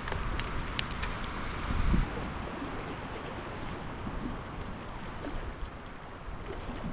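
Wind buffeting the microphone over small waves lapping a rocky lakeshore, a steady rushing noise. A few sharp clicks come in the first second, and a low thump about two seconds in is the loudest moment.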